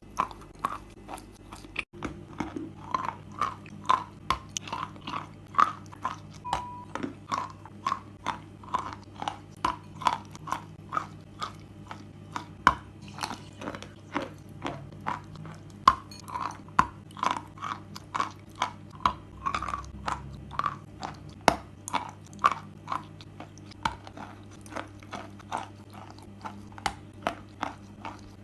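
A person chewing chalk close to the microphone, with steady crisp crunches about three a second.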